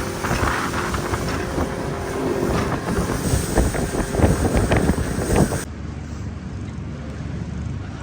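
A boat under way: its motor running under heavy wind noise on the microphone and rushing water. About two-thirds of the way in the sound changes abruptly to a quieter low rumble.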